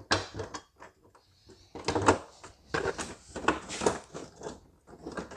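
Irregular knocks, clicks and rattles of a truck bumper being handled and pushed into place against the truck's front end.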